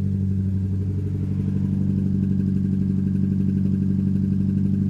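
Mazda MX-5's four-cylinder engine idling steadily but rough with a misfire, still shaking even on freshly fitted spark plugs.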